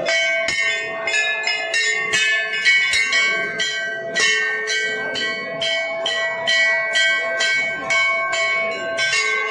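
Hanging brass temple bells rung over and over, about three strikes a second, several bells of different pitch ringing on over one another in a continuous clangour.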